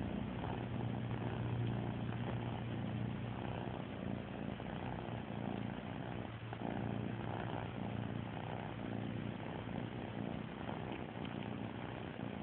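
Domestic cat purring steadily, close up to the microphone.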